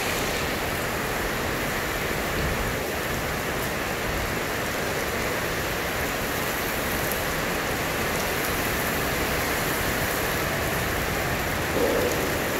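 Heavy rain pouring steadily onto a paved courtyard and roofs, a dense, unbroken hiss.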